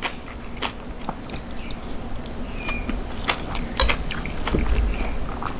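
Close chewing and mouth sounds of someone eating a spoonful of rice soaked in vegetable soup, with a few sharp clicks of a metal spoon against a ceramic plate a little past the middle.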